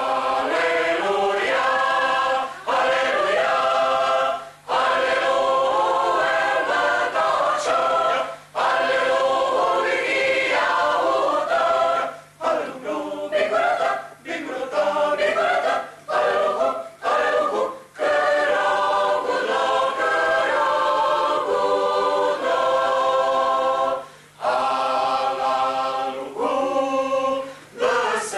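Mixed choir of men's and women's voices singing a cappella, phrase by phrase with short breaks for breath between phrases. A faint steady low hum runs underneath.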